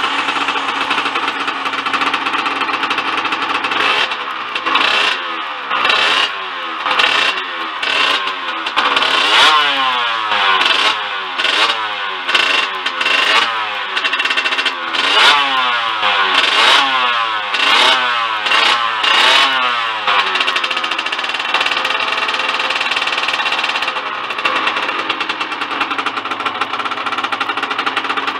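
Small two-stroke trail-motorcycle engine running, just started by spinning it with an electric drill. It runs steadily for a few seconds, then is revved again and again in quick throttle blips for about fifteen seconds, then settles back to a steady idle.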